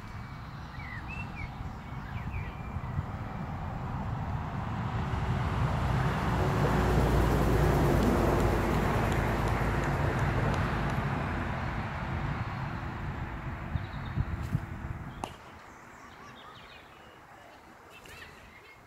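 A passing vehicle: a rushing noise with a low hum that swells over several seconds, then falls away and drops off sharply about fifteen seconds in. Birds chirp in the first couple of seconds, and two sharp knocks come just before the drop.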